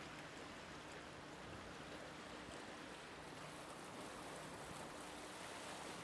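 Floodwater of the overflowing DuPage River rushing steadily, with a faint low hum underneath.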